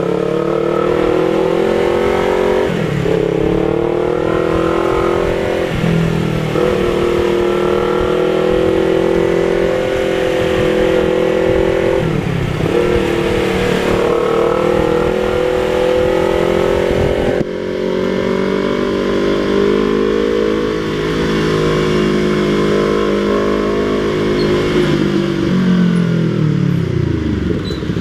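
Yamaha MT-03 motorcycle engine running through a Jeskap aftermarket exhaust with the dB killer removed, pulling steadily as it is ridden. The pitch dips briefly and recovers three times, as at gear changes, then falls near the end as the bike slows.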